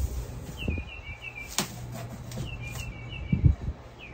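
A songbird singing three phrases of quick, repeated chirping notes, with a sharp click about a second and a half in and a dull thump of cardboard box flaps being handled about three and a half seconds in.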